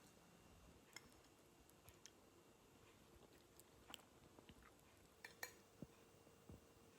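Near silence: quiet room tone with a steady faint hum and a scattered handful of faint clicks and light taps from small objects being handled.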